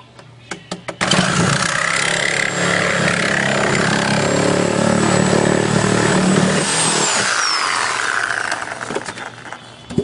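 A power tool switches on about a second in and runs loudly and steadily while working into the refrigerator to reach its tubing, then winds down near the end.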